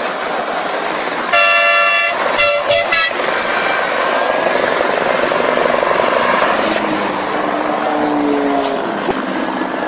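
Vehicle horn sounding one long blast, then three short toots in quick succession, over the steady noise of passing road traffic.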